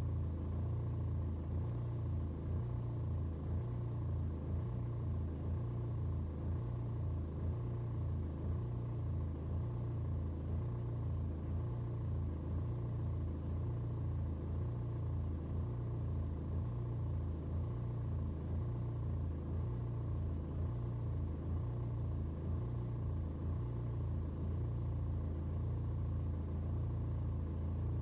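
BMW 120d's N47 four-cylinder turbodiesel idling after a cold start, its low engine note wavering slightly in level. The wavering is the cold-start rough idle: the revs fluctuate for a couple of minutes after starting from cold.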